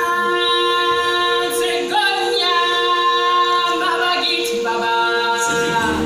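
Unaccompanied singing in long, held notes that shift pitch a few times, opening a live stage musical. A low musical accompaniment comes in near the end.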